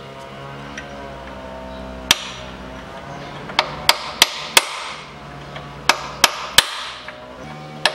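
Hammer blows on a steel bar driven against the Peugeot 407's lower engine mount bushing, knocking the torn rubber-metal silentblock loose for removal. The sharp strikes come singly about 2 s in, then in two quick runs of three near the middle and just past it.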